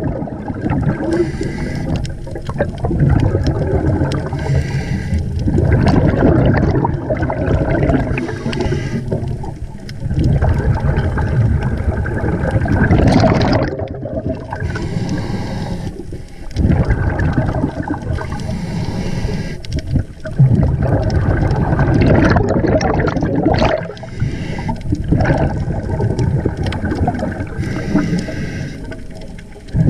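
Scuba diver breathing through a regulator underwater: surges of exhaled bubbles gurgling and rumbling every few seconds, with quieter gaps between breaths.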